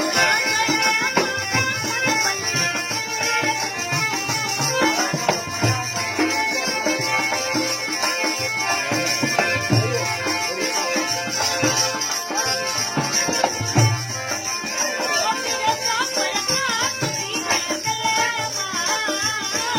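Rajasthani Marwari folk music: a wavering melody over a steady hand-drum beat.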